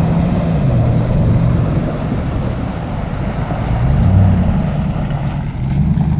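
Hummer H2's V8 engine running as the truck ploughs through a muddy puddle, with water splashing. The engine note falls about a second in and rises again about four seconds in.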